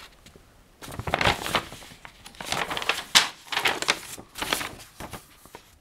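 Paper booklet rustling as it is handled and its pages turned, in several separate rustles over about four seconds.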